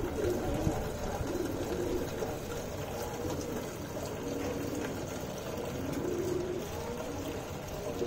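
Domestic pigeons cooing, low coos coming and going several times over a steady background hiss.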